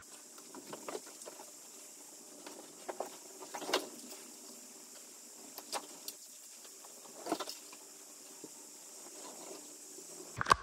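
Soft rustling with scattered light taps and knocks as a giant plush teddy bear is handled and shoved into place, over a faint steady hiss; the loudest knocks come about four seconds in and again near seven seconds.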